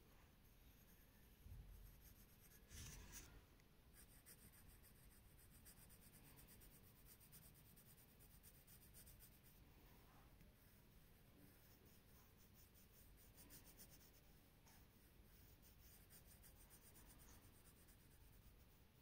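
Faint scratching of a pencil on paper in quick, repeated small strokes while a doll's eye is sketched, with two soft bumps in the first few seconds.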